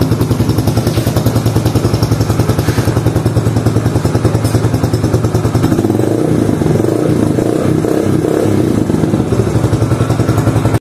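Yamaha YBR 125G's single-cylinder four-stroke engine running, ticking over with an even pulse, then revved higher from about six seconds in.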